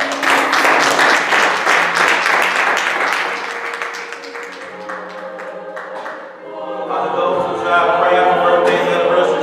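A congregation applauding over quiet sustained music. The clapping fades over the first few seconds, and about seven seconds in the music swells loudly with singing.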